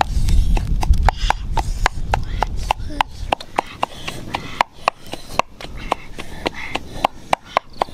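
Sharp, irregular crackles and pops, several a second, from sausages cooking on a hot stone slab over an open wood fire. A low rumble underlies the first few seconds.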